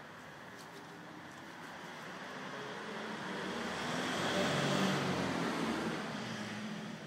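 A car driving past: engine and tyre noise swelling to a peak a little over halfway through, then fading away.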